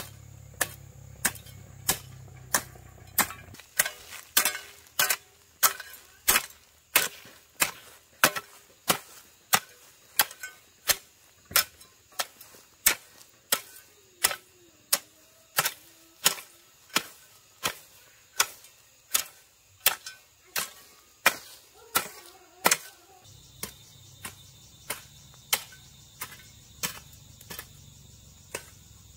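Steady rhythmic chopping, about three sharp blows every two seconds, growing fainter over the last few seconds, with a thin insect drone high in the background.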